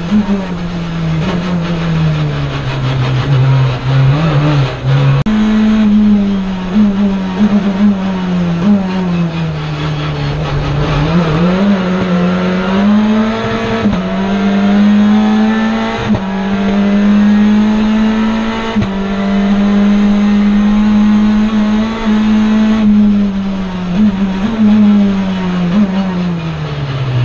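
In-cabin sound of a SAIC Volkswagen Lamando GTS touring car's 2.0-litre turbocharged four-cylinder engine at racing speed. The engine note falls under braking and jumps back up at downshifts, then climbs and holds high for much of the middle, broken briefly at each gear change. It falls again near the end.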